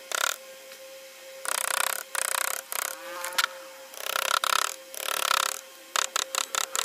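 Wood-carving chisel pushed by hand through wood, scraping cuts. There are four strokes of about half a second each, then a quick run of short cuts near the end.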